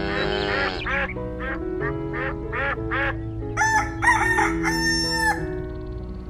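Several quick duck quacks, about two a second, then a rooster crowing about halfway through, both over background music.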